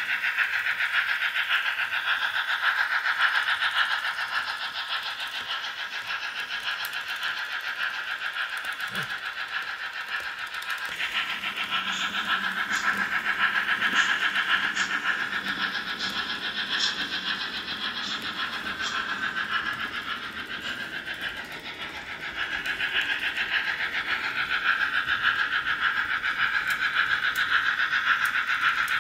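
H0 Märklin model steam locomotive and passenger coaches running on track: a steady whirring rattle of motor and wheels, with a few light ticks in the middle stretch.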